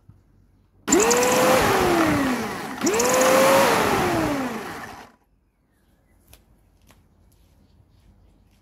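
Flymo electric hover mower's motor and fan switched on twice in quick succession, each time whining up to speed and then winding down in pitch as it is let go. The blade spins, driven by the newly fitted drive belt.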